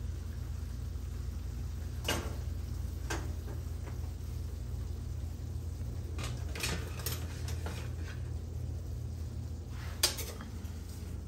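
Metal kitchen tongs clinking against a stainless steel pan and a plate while pasta is served: scattered sharp clinks, a cluster of them about six to seven seconds in and the loudest near the end, over a steady low hum.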